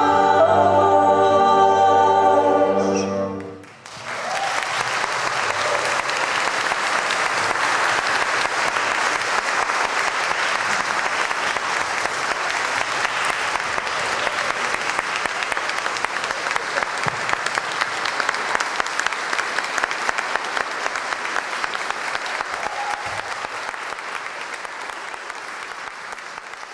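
A choir with string orchestra holds a final chord that breaks off about four seconds in; then an audience applauds steadily, slowly fading toward the end.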